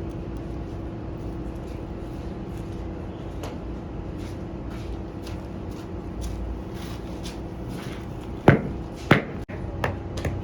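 Steady mechanical hum with a constant low tone, under scattered clicks and knocks; two loud knocks come about half a second apart near the end.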